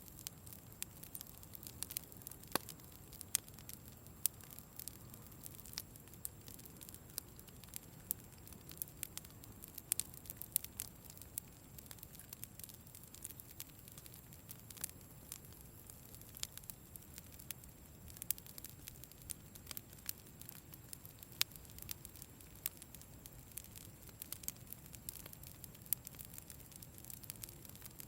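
Campfire burning, with irregular sharp crackles and pops over a soft low rush of flame.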